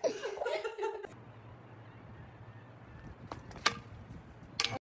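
A person laughing for about a second. Then a faint steady low hum, with a few sharp clicks or knocks and a short noise just before the audio cuts off.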